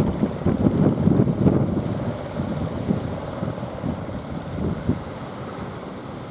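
Strong wind buffeting the microphone in uneven gusts, hardest in the first couple of seconds and then easing, over the wash of surf.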